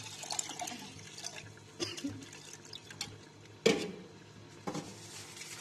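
Water pouring from a clear jug into an aluminium cooking pot, the splashing fading within the first second or two. It is followed by a few sharp knocks and clinks, the loudest a little past halfway.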